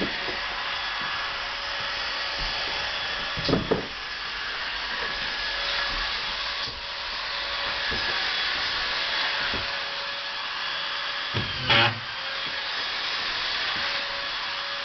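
Drywall screw gun running with a steady buzzing whine, with two louder knocks about three and a half seconds in and near twelve seconds.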